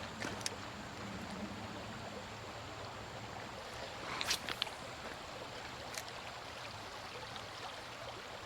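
Creek water flowing steadily over a shallow riffle, a constant rush, with a few brief sharp sounds about four seconds in and once more near six seconds.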